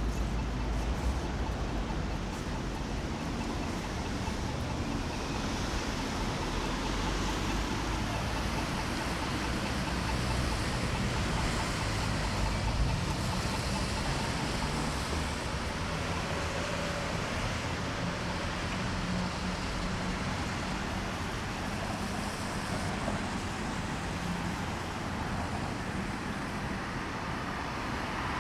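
Steady city street ambience in a light drizzle: an even hiss of traffic on the wet street over a low rumble.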